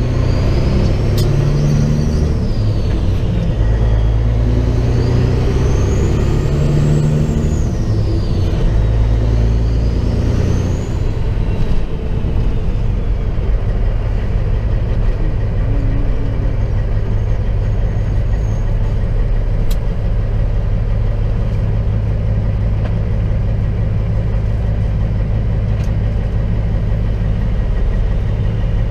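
Semi truck's diesel engine heard from inside the cab during a slow, tight turn. The engine's pitch rises and falls for the first ten seconds or so, with a thin whine rising and falling above it. The sound dips briefly just before the twelve-second mark, as at a gear change, then settles into a steady low drone.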